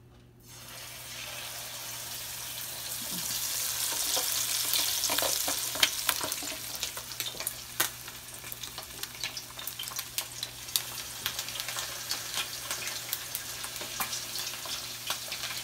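Hot Cheeto-breaded chicken wings sizzling as they go into a pan of hot frying oil, the sizzle swelling a few seconds in as more wings are added. The oil is popping, with scattered sharp crackles.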